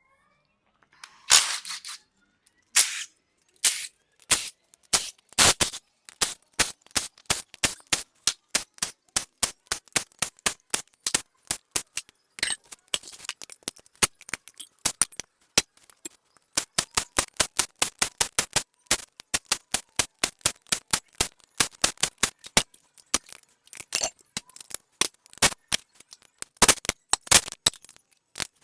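Hand tools working on an engine to get its cylinder heads off: a long run of sharp metallic clicks and taps, several a second, in bunches with short pauses between them.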